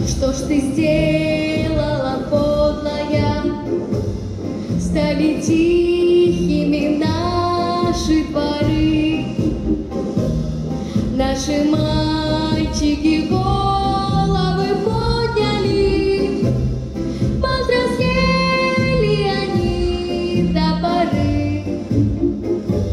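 A woman singing a slow melody with long held notes over instrumental accompaniment with a steady repeated bass.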